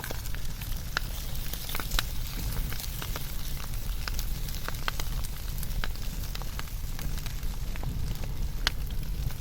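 Wood fire burning, with frequent irregular sharp crackles and pops over a steady low rumble of the flames.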